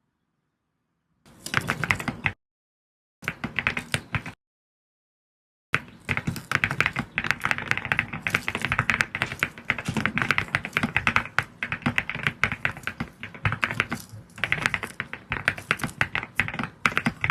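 Mechanical keyboard typing: an AULA F75 with LEOBOG Nimbus V3 linear switches and ceramic keycaps clacking under fast keystrokes. After a moment of silence come two short flurries of typing with silent gaps between them, then steady rapid typing from about six seconds in.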